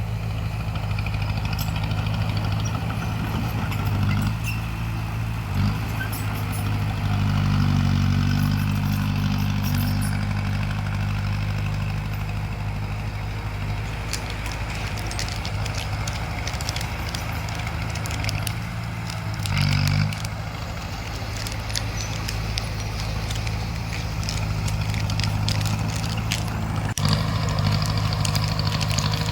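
Bulldozer's diesel engine running steadily under work. It swells louder twice, about a quarter of the way in and again about two-thirds of the way in, with a stretch of sharp metallic clicking and clattering between.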